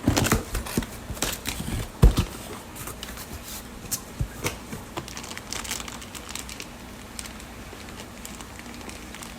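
Crinkling and rustling of plastic fish bags and packing material being handled as a fish shipping box is opened, with a dense run of crackles and knocks in the first few seconds, the loudest a knock about two seconds in, then occasional softer crackles.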